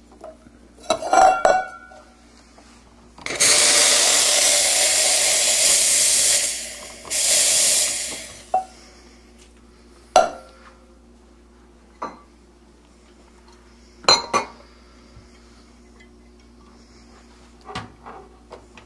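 La Spaziale S1 Vivaldi II espresso machine's steam wand purged in two loud hissing blasts, the first about three seconds long and the second shorter, clearing it before milk is steamed. Clinks and knocks of a cup and a steel milk pitcher being handled come before and after.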